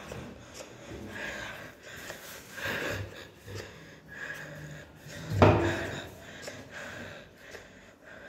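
Quiet rustling, then one sharp knock about five and a half seconds in from a kitchen cabinet being shut.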